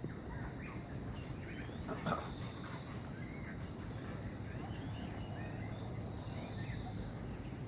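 A chorus of insects shrilling in a steady high drone, easing slightly twice before swelling again.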